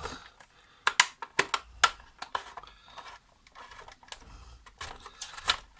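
Plastic housing of a Krups Dolce Gusto Infinissima coffee machine being pried off: a string of sharp plastic clicks and snaps as its clips are worked loose, thickest between about one and two seconds in, with a few more near the end.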